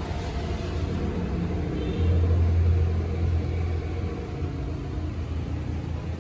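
Machine motor spinning an alloy wheel rim on its shaft: a steady low hum that grows louder about two seconds in and eases back a couple of seconds later.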